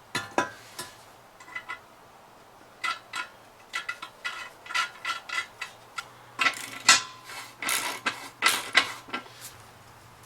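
Small metal parts and tools clinking and clanking as they are handled, a run of sharp separate clicks that gets busier in the second half.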